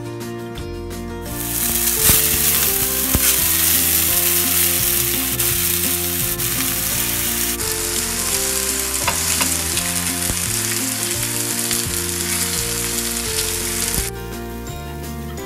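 Cubes of firm tofu sizzling as they fry in hot oil in a frying pan. The sizzle starts about a second in and cuts off abruptly near the end.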